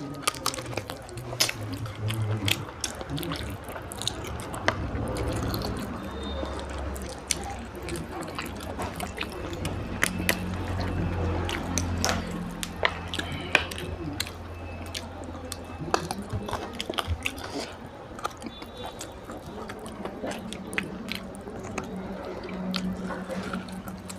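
Close-miked wet chewing and lip-smacking while eating rice and meat curry, with many sharp wet mouth clicks throughout.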